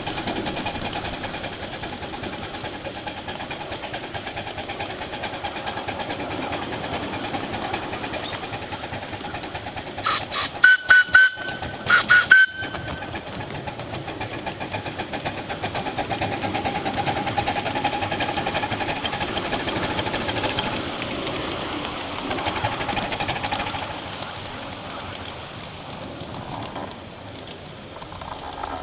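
Ride-on miniature live-steam locomotive running along its track with a steady, rapid beat. About ten seconds in, its whistle gives a string of short toots, then two or three more a second later.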